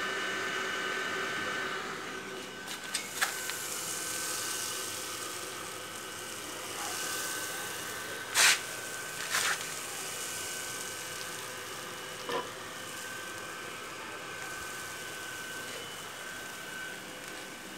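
Homemade air blower, a 12-volt DC fan from an old Dell computer case, running steadily: a whir of rushing air with a steady high whine. A few knocks from handling it come through, the loudest about eight and a half seconds in.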